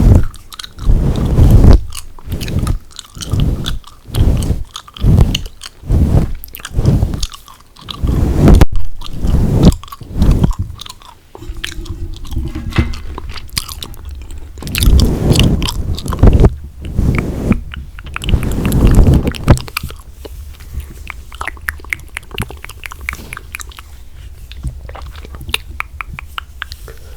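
Gum being chewed right up against a handheld microphone. Loud, rhythmic chews come a little over one a second at first, then turn into a busier, softer stretch, with small sticky clicks of the gum in the last several seconds.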